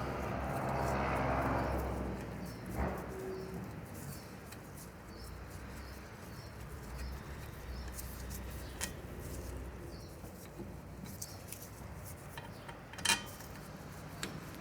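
Driveshaft being turned by hand and lined up with its flange: a creaking, grinding stretch in the first couple of seconds, then scattered light clicks and knocks, with a sharp metallic click about thirteen seconds in.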